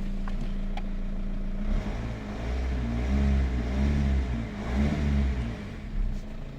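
Diesel car engine idling steadily, then revved up and down several times before settling back to idle. The engine has just had a top-end repair after its timing belt jumped.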